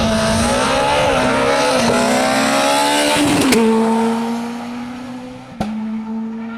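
Rally car engine revving hard as it approaches, the pitch climbing with a brief dip at a gear change about two seconds in. As the car goes by there is a sharp crack and the pitch drops, settling into a steadier drone that fades as it drives away. Another sharp crack comes near the end.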